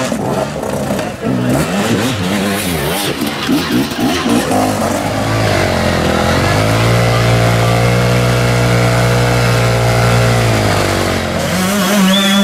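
Enduro dirt bike engines revving hard in quick rising and falling blips as a rider picks over rocks. About five seconds in, one engine, a BMW enduro bike's, is held at steady high revs for several seconds while its rear wheel spins and throws mud.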